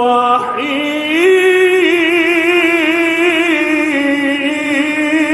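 A man reciting the Quran in the melodic mujawwad style, drawing out one long ornamented phrase with a wavering, trilling pitch. There is a short break about half a second in, and the pitch rises about a second in.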